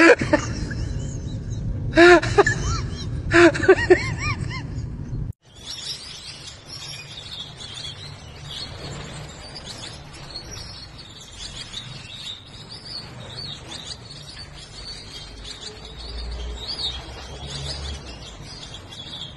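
A kitten gives a few meows in the first four seconds. About five seconds in it cuts to caged finches, a canary and a Gouldian finch, chirping and twittering steadily at a high pitch.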